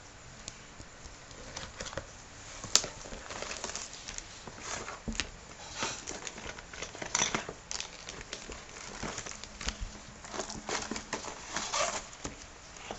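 A toy kit's packaging being opened by hand: irregular crinkling and rustling with scattered clicks and taps, and one sharp click about three seconds in.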